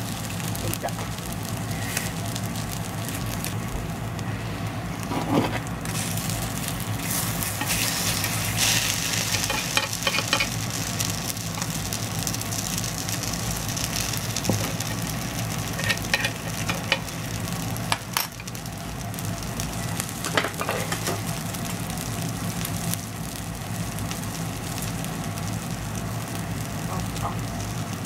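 Takoyaki sizzling in a cast-iron takoyaki pan, with the short scrapes and clicks of a pick turning the balls in their wells now and then, over a steady low hum.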